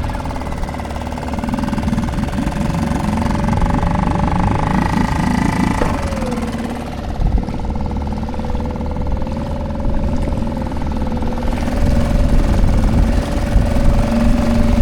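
Small outboard motor on an inflatable dinghy running steadily under way, its note dipping briefly about six seconds in.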